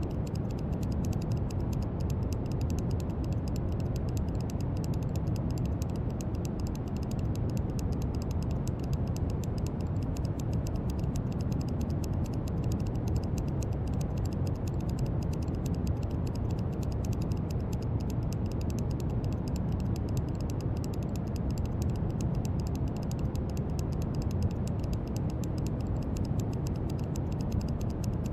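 Steady brown noise: a constant, deep hiss weighted heavily toward the low end, with no change in level.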